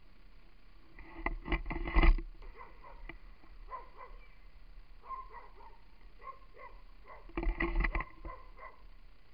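Rumble and clatter from an action camera on a hand-held selfie stick being jostled during a walk with leashed dogs, in two louder bursts, about a second in and near the end, with faint short clinks and chirps between them.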